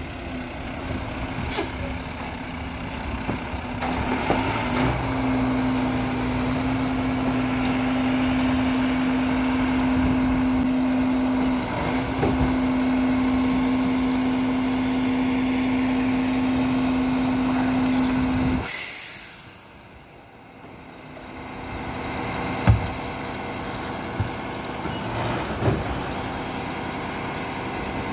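Mack LEU garbage truck's diesel engine running with a steady hum. About two-thirds through there is a short hiss of air brakes, and the level drops. After that the engine idles more quietly, with a few sharp knocks as plastic recycling bins are emptied into the hopper.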